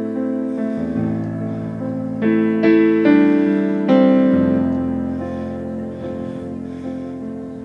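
Piano-style keyboard playing slow, sustained chords, a new chord struck every second or so in the first half, then dying away and growing quieter.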